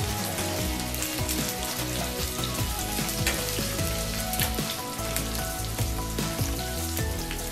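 Potato, carrot and capsicum pieces sizzling as they fry in hot oil in a non-stick kadai, stirred with a wooden spatula, with occasional small clicks.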